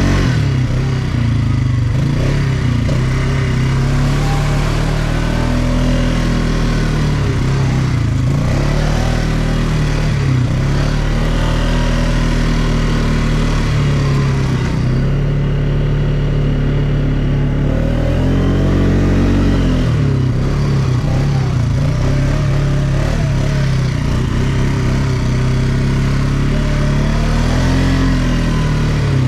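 ATV engine running under load while riding, its pitch rising and falling again and again as the throttle is opened and eased off.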